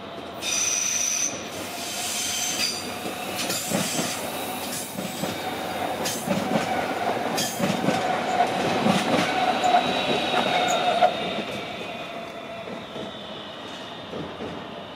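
BLS Lötschberger RABe 535 electric multiple unit moving off through the station. Its wheels squeal high twice in the first three seconds, and its wheels clack over the points. A steady whine swells as it passes close, about ten seconds in, then fades.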